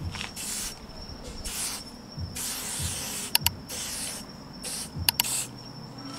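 Aerosol spray paint can spraying in several short hissing bursts, with a few sharp clicks between them.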